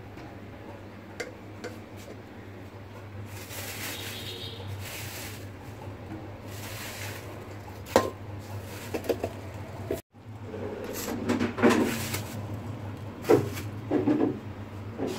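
Kitchen items being handled on a counter: plastic bags rustling, then steel containers and utensils knocking and clattering, with a sharp knock about halfway through and more clatter near the end. A steady low hum runs underneath, and the sound drops out briefly about two-thirds of the way in.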